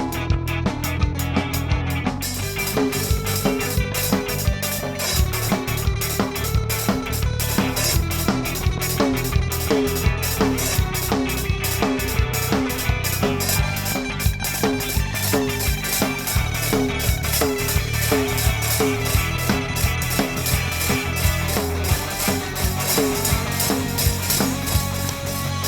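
Instrumental rock band playing live: electric guitar riff over bass and a drum kit, with the full drum beat coming in about two seconds in.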